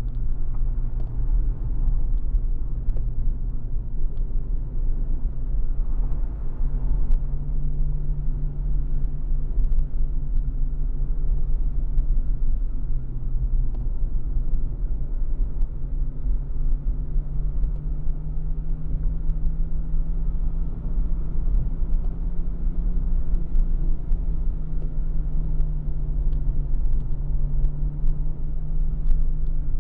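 Car engine pulling uphill under a heavy low rumble of road and wind noise, heard from inside the cabin; the engine note climbs and drops back a few times with throttle and gear changes.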